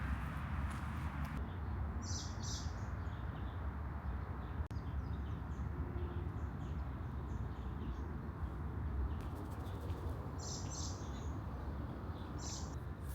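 Small birds chirping: a few short high chirps about two seconds in and again near the end, over a steady low outdoor rumble.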